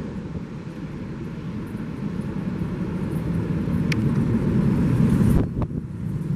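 Jet engine noise from a Boeing 777-200F freighter's two GE90 turbofans on final approach: a low, steady rumble passing overhead and away. It swells to its loudest about five seconds in, then drops off suddenly, with a few knocks of wind on the microphone near the end.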